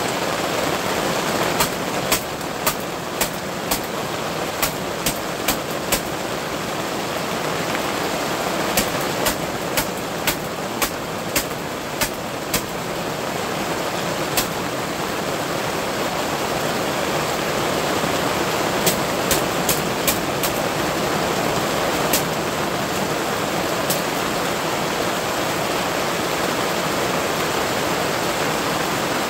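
Steady rain, heard from under a fabric canopy as a constant even hiss. Sharp ticks come in runs of about two a second: near the start, around the middle, and again about two-thirds of the way in.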